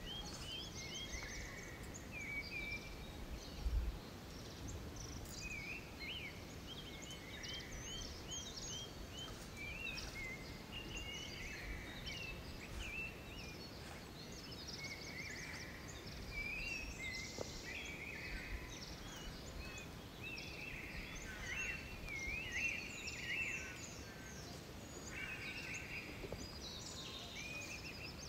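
Songbirds chirping and calling throughout in many short rising and falling notes, over a faint steady background noise. A dull thump about four seconds in.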